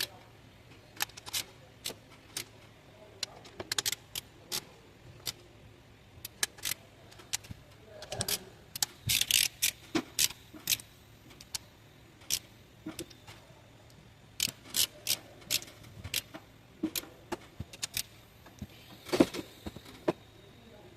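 Hand tools clicking and clinking on metal bolts as a new water pump is bolted to the engine and tightened. The clicks come irregularly, with a denser clatter about nine seconds in and a sharp knock near the end.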